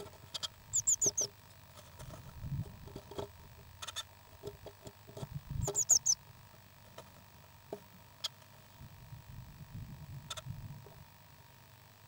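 Newly hatched baby birds peeping: two quick runs of about four high, falling peeps, one about a second in and one around the middle, amid scattered small clicks and rustling.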